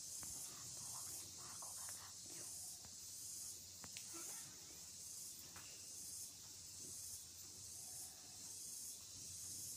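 Faint steady high hiss that swells and dips about once a second, with a few soft rustles and small clicks.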